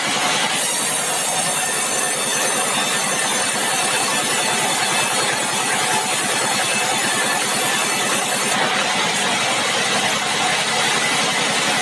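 Sawmill machinery running steadily, an engine with a fast even pulse. A high hiss joins it about half a second in and drops away near the end.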